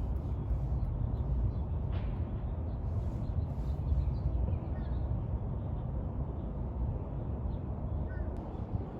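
Steady low outdoor rumble, with a few faint bird chirps about halfway through and near the end.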